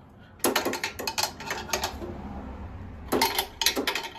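Wrench on the nut and bolt of a flywheel lock, snugging it down: two runs of quick metallic clicks and clinks, the second starting about three seconds in.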